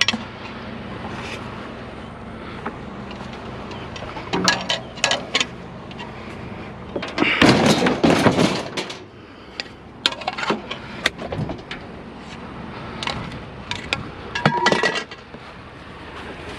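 Hard curbside junk being handled and moved about: scattered knocks and rattles, with a dense clatter about halfway through and another burst of knocks near the end.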